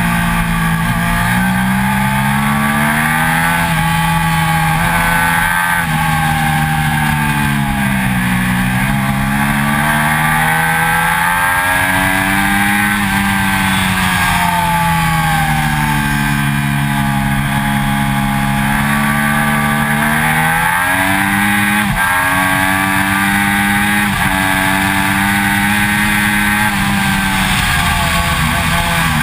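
2006 Triumph Daytona 675's three-cylinder engine at track speed, revs climbing and falling repeatedly through the bends, with quick breaks at gear changes, over a steady rush of wind and road noise.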